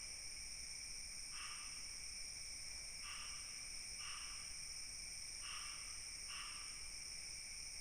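Insects keeping up a steady, high-pitched drone, with a shorter call repeating five times at uneven gaps of one to two seconds.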